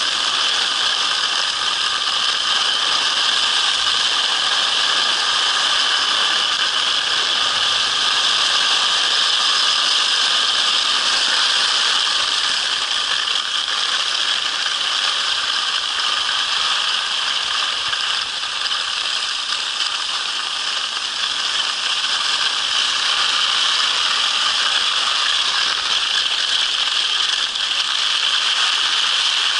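Steady, gritty scraping hiss of skis sliding over snow while a husky tows the skier along.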